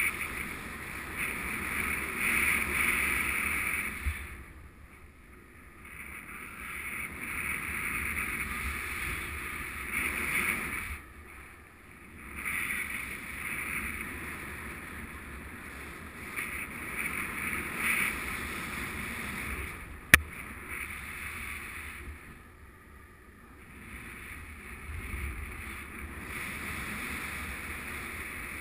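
Airflow rushing over the camera microphone in paraglider flight. The rush swells and eases and drops away briefly three times, with one sharp click about twenty seconds in.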